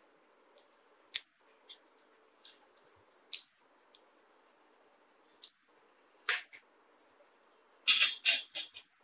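Scattered light taps and clicks, then a quick run of four or five loud metallic clanks near the end as steel pot-holding tongs clamp onto the rim of a steel saucepan.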